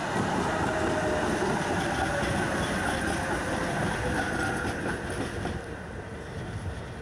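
Two coupled Stuttgart GT4 articulated trams passing close by, their wheels rumbling over the rails with a faint whine. The sound fades as they move away near the end.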